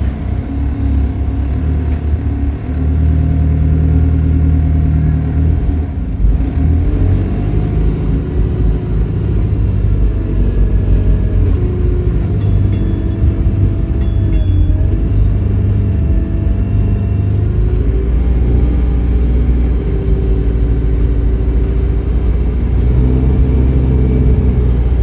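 Diesel engine and drivetrain of the single-deck bus SEN52 heard from inside the passenger saloon while it drives: a heavy low rumble whose note shifts as the bus accelerates and eases off, with a faint high whine that rises and falls several times.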